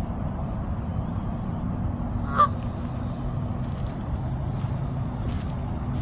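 A Canada goose gives a single short honk about two seconds in, over a steady low rumble.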